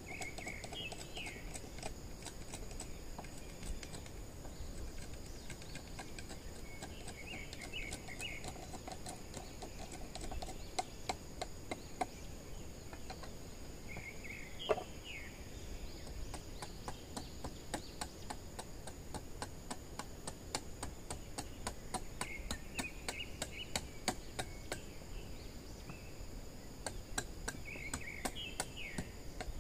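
Light, quick taps and clicks of hand-tool work on bamboo, growing denser in the second half. A bird gives a short chirping call about every seven seconds over a steady, high insect drone.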